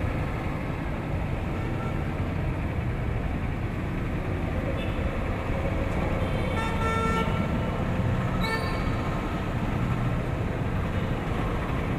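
Steady street traffic rumble with vehicle horns tooting briefly several times, about five seconds in, a longer toot around seven seconds, and another near eight and a half seconds.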